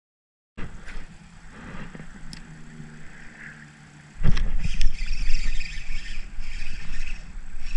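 Wind buffeting a camera microphone, a loud uneven rumble that jumps up suddenly about four seconds in, with a few sharp clicks.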